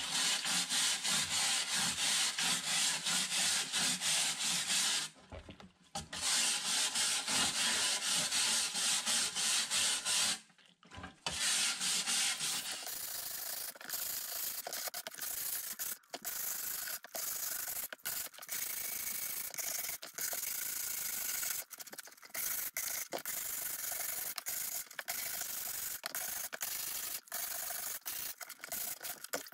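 A wooden-backed scrubber scrubbed rapidly back and forth over the rusty metal canister of an old hand-crank ice cream maker, wet with rust-stained liquid. Loud strokes break off briefly about five and eleven seconds in, then go on more softly.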